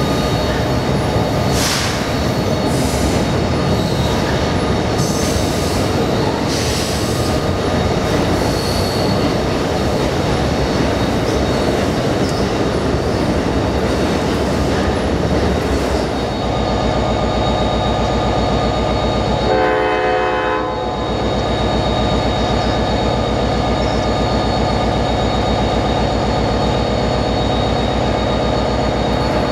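Amtrak passenger cars rolling past with wheel clicks over the rail joints, the rolling noise giving way to a steadier hum about halfway through. About 20 seconds in, a train horn sounds once for about a second, and a steady hum follows as the next train approaches.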